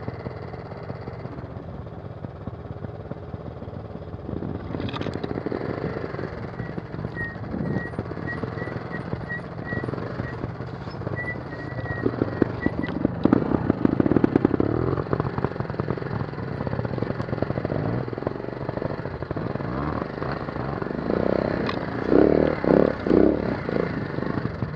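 Trial motorcycle engines running at low revs, with a burst of throttle about halfway through and a quick string of throttle blips near the end.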